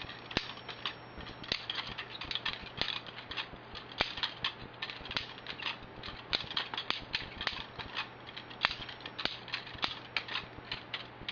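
Balisong (butterfly knife) handles and blade clicking and clacking in quick, irregular runs as the knife is flipped, opened and passed from hand to hand in a passing drill.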